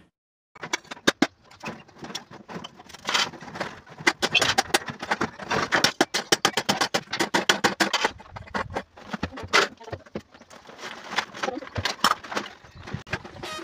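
Plastic sack and bags rustling and crinkling as clutter is handled and sorted by hand, a dense run of crackles, clicks and small knocks.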